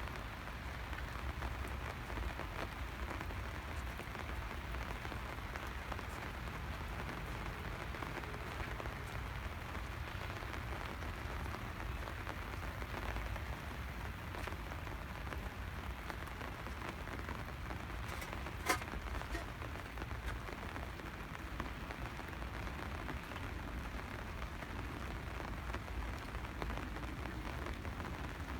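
Steady rainfall, an even hiss of rain on surfaces. One sharp click about two-thirds of the way in.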